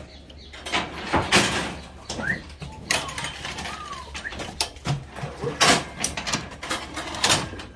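A series of knocks and bangs from cattle being worked through the corral, with a few louder bangs spaced a second or two apart. A few short bird chirps sound in between.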